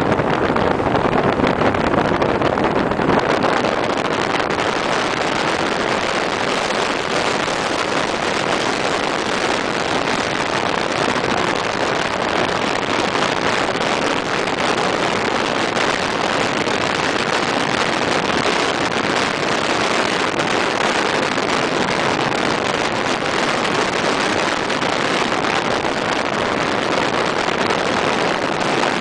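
Steady rush of wind and tyre noise from a car driving at highway speed, with the hiss growing brighter about three seconds in.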